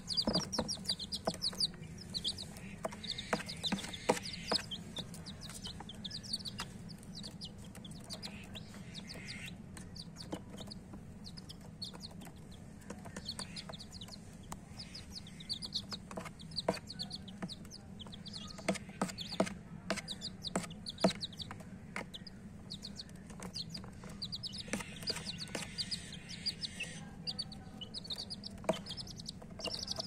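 Baby chicken chicks peeping in quick runs of high chirps that come and go in clusters, with scattered sharp taps throughout over a steady low hum.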